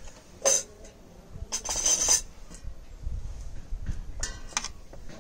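Kitchen utensils and dishes clinking and clattering in a few separate bursts: a sharp clink about half a second in, a longer clatter around two seconds in, and two quick knocks near the end.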